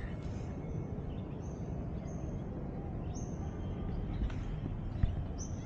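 Short high bird chirps, four or five spaced a second or so apart, over a steady low rumble of background noise.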